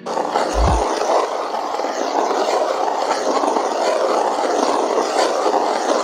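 Paintbrush bristles dragging across the painting surface in steady strokes: a continuous, close-up scratchy brushing that swells and eases with each stroke. A brief low thump comes less than a second in.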